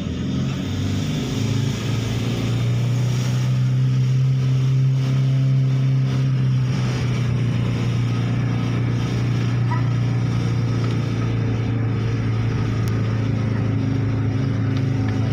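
Car engine running steadily while driving, heard from inside the cabin as a low hum over faint road noise. Its pitch steps up about a second and a half in and eases slightly around the middle.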